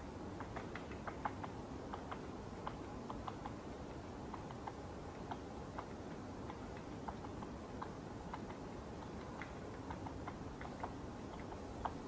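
Woodpecker pecking at wood: light taps scattered irregularly, about two to four a second, not a drumming roll, over a low steady background hiss.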